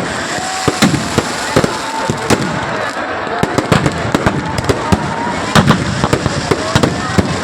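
Firecrackers in a burning Ravana effigy going off in a fast, irregular run of sharp cracks, with a crowd's voices underneath.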